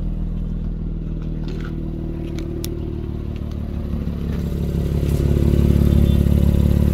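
The 2022 Honda Pilot's V6 running steadily with a loud exhaust note that sounds like a race car, because the catalytic converter has been cut out of the exhaust. It gets louder about two-thirds of the way in as the microphone goes under the car.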